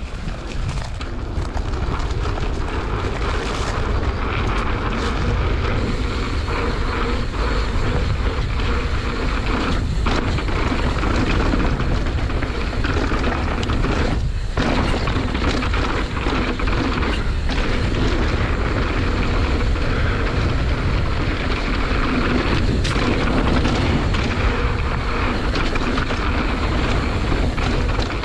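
Mountain bike riding down a rough trail: wind buffeting the camera microphone over the steady rumble and rattle of the tyres and bike on the ground, with a few sharp knocks from bumps.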